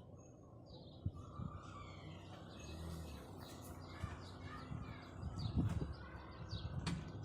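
Low knocks from a wheel of a Volkswagen Virtus while braking in a turn, a few light ones early and the loudest cluster about five and a half seconds in; the dealer calls the knock normal. Birds chirp throughout.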